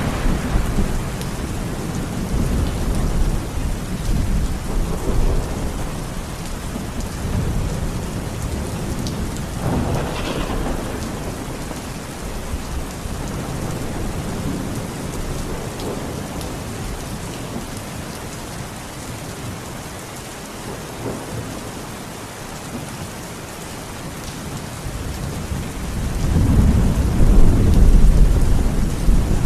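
Steady rain with rolling thunder: a low rumble dies away at the start, a sharper crack comes about ten seconds in, and a long rumble swells up near the end.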